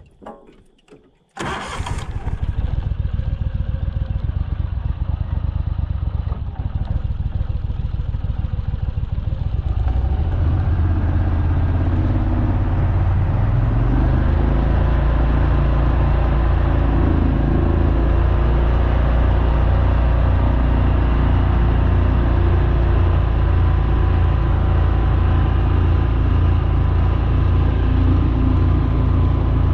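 A 37 HP boat mud motor starting about a second and a half in and running at low speed. About ten seconds in it is throttled up and gets louder as the boat picks up speed.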